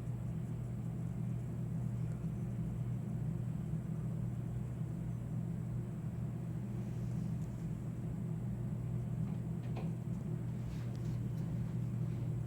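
A steady low hum heard through an apartment wall, with a few faint clicks in the last few seconds: the unexplained clicking noise from inside the wall.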